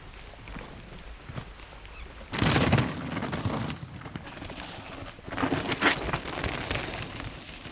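Mountain bike riding a dirt trail: tyre noise over the ground with chain and frame rattles and clicks. Two louder rushes come about two and a half seconds in and again near six seconds.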